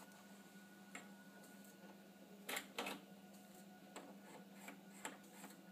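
Faint clicks and knocks of a hand working a small audio mixer's knobs and faders, with two louder clacks close together about two and a half seconds in, over a steady low hum.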